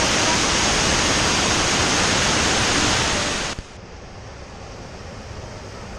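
Waterfall rushing loudly, then cutting off suddenly about three and a half seconds in to a much quieter steady hiss.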